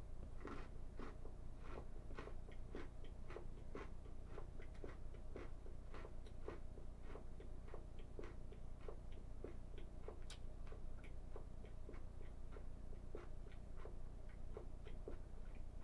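Crunchy Flamin' Hot Cheetos snack pretzels being chewed: an irregular run of crisp crunches, a few a second, over a steady low hum.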